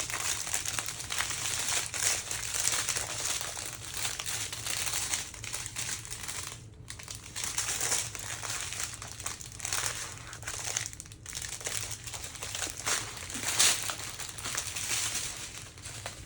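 Plastic crinkling and rustling from the plastic of a diamond painting kit being handled, with two brief pauses about 7 and 11 seconds in.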